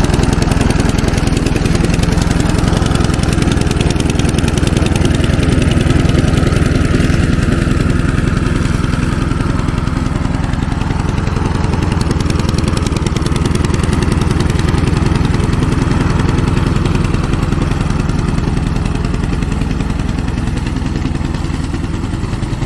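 A nearly 30-year-old petrol walk-behind rotary lawn mower's engine running steadily as it cuts grass, getting a little fainter near the end. The engine is sounding a bit rough and is not the healthiest.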